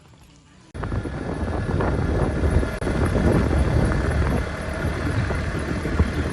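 Loud, low rumbling noise with wind on the microphone, cutting in suddenly under a second in.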